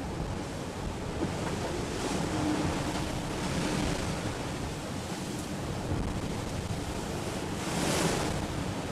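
Sea water rushing past the hull of an IMOCA 60 racing yacht under way at speed: a steady wash that swells louder a few times, most strongly near the end.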